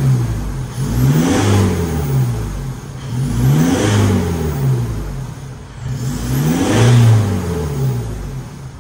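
Isuzu MU-X turbodiesel breathing through a Borla full exhaust with XS-Pro muffler, free-revved three times from idle, each rev climbing and then falling back. The revs come about 1.5, 4 and 7 seconds in.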